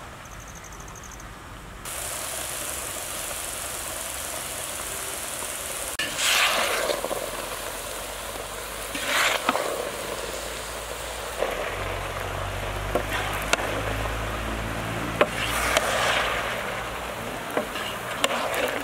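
Chopped bottle gourd frying in a large iron kadai over a wood fire: a steady sizzling hiss that starts about two seconds in and swells louder three times.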